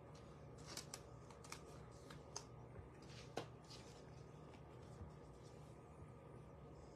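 Faint flicks and light snaps of baseball cards being handled and sorted by hand, a few sharp clicks scattered through, the sharpest about halfway through.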